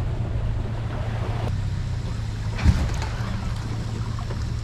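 Pickup truck engine running steadily, a low hum heard from the towed skiff, with one short thump about two and a half seconds in.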